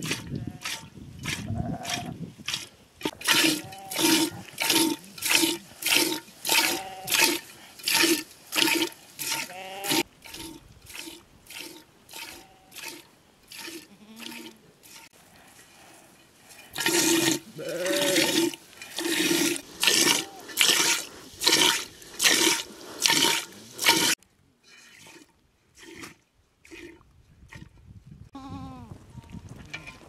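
A goat being milked by hand into an aluminium pot: jets of milk hiss into the metal pot in a steady rhythm of about two squirts a second, in two loud runs with fainter strokes between. A goat bleats near the end.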